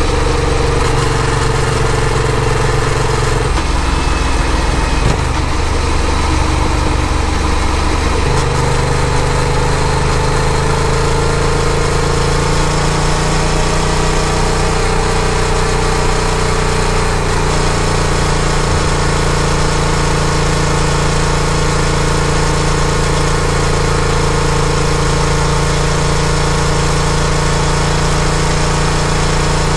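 Yamaha FZ-07's parallel-twin engine running under way. The engine note changes between about four and eight seconds in, then settles on a steady note that climbs slowly for a few seconds and holds.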